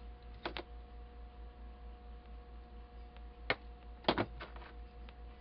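Short sharp metallic clicks and clinks from bottle caps and small pieces of wire being handled while strands are attached to a suncatcher frame. There are two close together near the start, a single one about three and a half seconds in, and then a quick cluster of several just after, all over a steady low hum.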